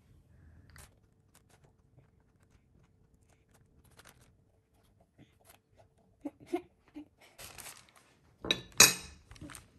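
Metal spoon scraping out the inside of a pumpkin: quiet scattered scrapes and clicks, with a louder scraping burst near the end.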